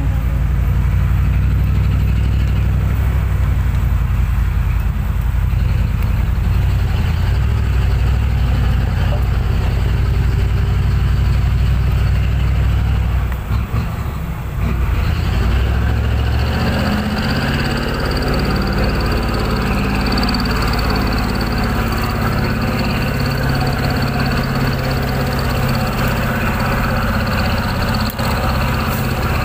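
Heavy truck diesel engine running with a strong low rumble. Shortly before halfway the sound dips briefly, then a different, brighter engine note with a thin high whine takes over.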